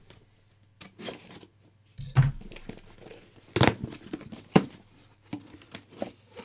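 Cardboard shipping box being opened by hand: a series of irregular tearing and crinkling sounds, with a dull knock about two seconds in and the loudest rips around the middle.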